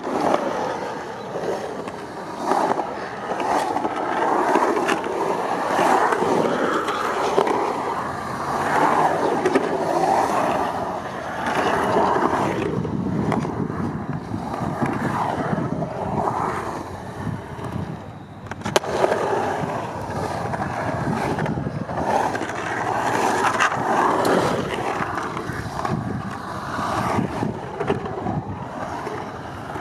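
Skateboard wheels rolling on a concrete bowl, the sound swelling and fading as the rider carves up and down the walls. One sharp knock about two-thirds of the way through.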